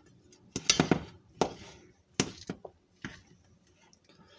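Kitchen clatter of dishes and utensils: a series of sharp knocks and clinks, the loudest cluster around the first second, with single knocks following at intervals.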